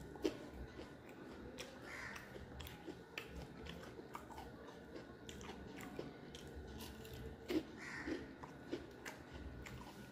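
Close-miked eating sounds: chewing and crisp crunching bites of fried food, a pumpkin-flower fritter in crispy rice-paste batter and a green chili. Sharp crunches stand out about a quarter second in and again about three quarters of the way through.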